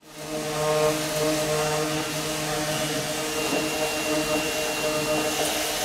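A motor-driven machine running steadily at a constant pitch, with a strong hiss over it.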